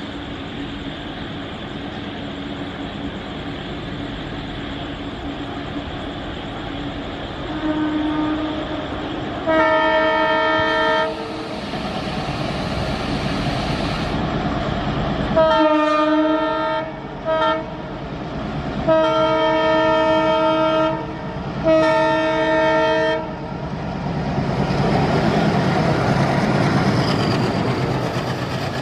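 Approaching diesel locomotive sounding its multi-note air horn in a series of about six blasts, some about a second and a half long and some short, over a steady distant rumble. Near the end the noise of the engine and wheels on the rails swells as the train runs past.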